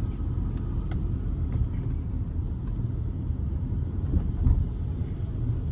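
Steady low rumble of road and engine noise inside the cabin of a Beijing X7 SUV driving along at about 35 km/h.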